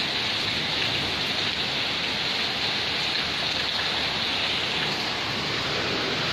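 Steady rain falling: an even, unbroken hiss of rain on the ground and surfaces.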